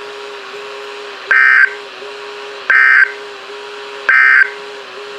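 NOAA Weather Radio EAS end-of-message data bursts: three short, buzzy digital bursts about a second and a half apart, marking the close of the required weekly test. A faint steady hum from the receiver runs under them.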